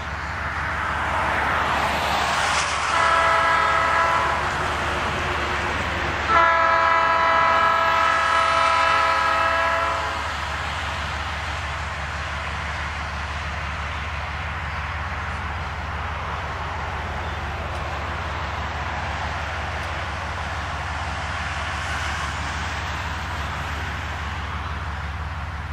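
GE B23-7 diesel locomotive's air horn sounding for a grade crossing, first a shorter blast and then a long one. After the horn stops, the locomotive's engine and the train's wheels rumble steadily as the train approaches.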